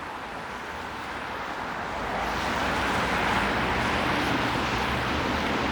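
Traffic on a rain-wet street: tyre hiss on wet pavement swells over a couple of seconds and holds, with a low engine hum underneath.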